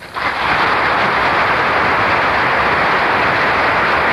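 Studio audience applauding, rising sharply at the start and holding steady.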